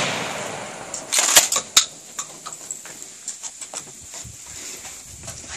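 The echoing tail of a gunshot fades at the start. About a second in come a few sharp clacks, followed by scattered light clicks: a pump-action shotgun being worked and loaded with shells.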